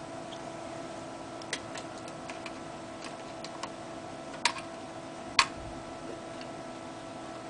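Scattered small clicks and taps from handling laptop parts and a hard drive, the two sharpest about four and a half and five and a half seconds in, over a steady hum.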